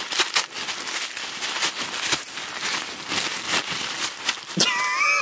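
Wrapping paper being torn and crumpled by hand as a toy is unwrapped: a rapid, irregular run of crackling rustles. Near the end a high, wavering vocal whine starts.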